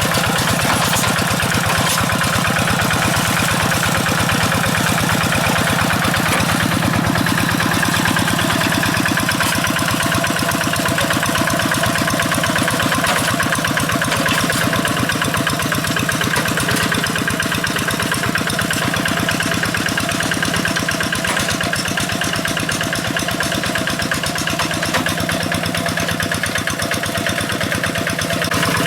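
Single-cylinder Kubota RD85 DI-2S diesel engine of a Quick G1000 two-wheel hand tractor running steadily, a fast even chug of firing strokes.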